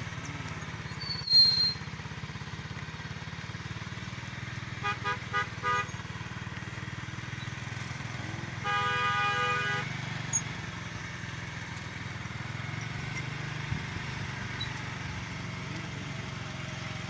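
Vehicle horn honking: four quick short beeps about five seconds in, then one longer honk of about a second, over a steady low engine hum. A brief, loud, sharp sound with a high ringing tone about a second in is the loudest moment.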